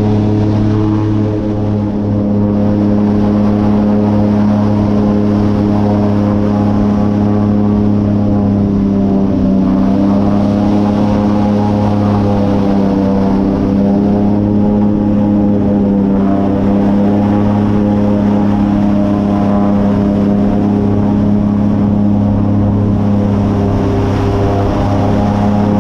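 Airboat's engine and air propeller running steadily at cruising speed: a loud, even drone whose pitch dips slightly about ten seconds in and again about six seconds later.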